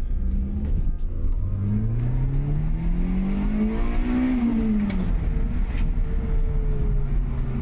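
Toyota 2ZZ-GE four-cylinder engine running with a low rumble and revved once. The pitch climbs for about three seconds, peaks about four seconds in, then drops back. The engine runs but is making noises.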